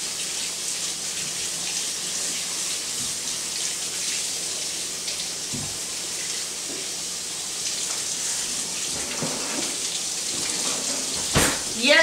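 Kitchen tap running steadily into a sink, an even hiss of water, with one sharp knock near the end.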